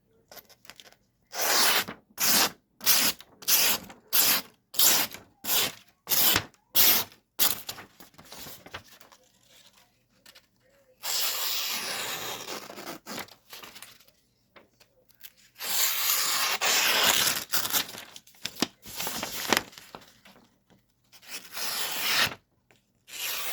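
Thin, sharp folding-knife blade making slicing cuts: first a run of about ten quick short strokes, then several longer drawn cuts with pauses between them.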